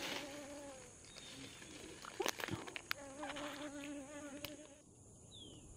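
A flying insect buzzing, a wavering hum that fades out about a second in and comes back for nearly two seconds in the middle. A few faint clicks fall in between.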